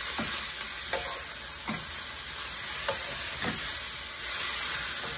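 Pea sprouts sizzling in hot oil in a stainless steel wok on high heat, with a wooden spatula scraping and tossing them every second or so.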